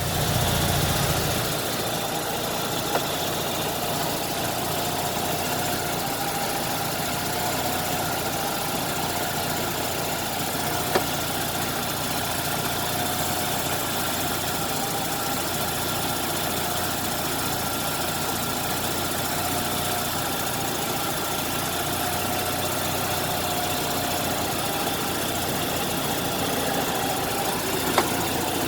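1990 Mazda RX-7's rotary engine idling steadily with the air conditioning running, while R134a refrigerant is added to the system. A few single light clicks break the steady sound.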